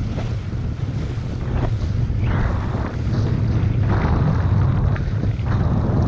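Wind buffeting an action camera's microphone, with the rush of water and spray under a kiteboard riding over choppy sea. Several louder splashes come as the board hits chop.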